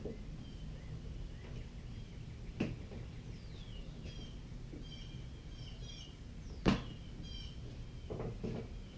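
Sparse knocks from parts being handled, one soft and one sharp, louder one about two-thirds of the way through, with small birds chirping repeatedly in the background.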